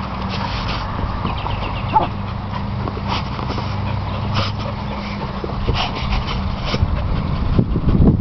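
Dogs playing on grass, with a few short, high dog yips scattered through and a steady low hum underneath. Rustling grows louder near the end as the dogs come right up to the microphone.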